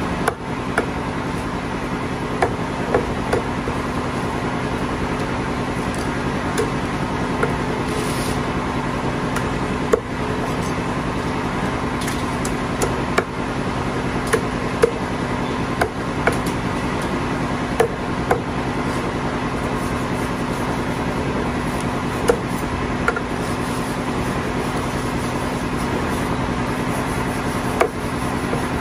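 Meat cleaver chopping chicken on a thick wooden chopping block: sharp, irregular knocks every second or two, over a steady mechanical hum.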